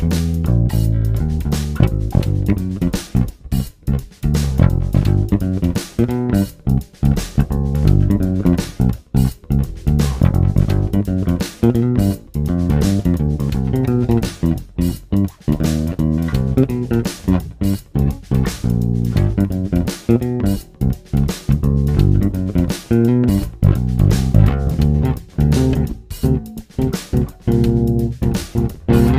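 Danelectro Longhorn electric bass played fingerstyle: a continuous run of plucked notes with sharp attacks.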